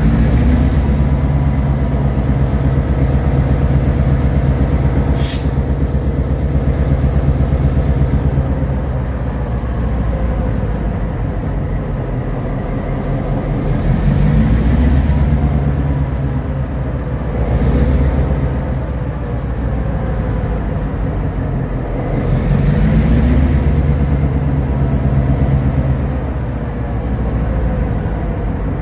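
EMD SD38-2 locomotive's non-turbocharged V16 diesel engine running under load, its revs rising and falling several times as the power is notched up and down. A single brief sharp hiss about five seconds in.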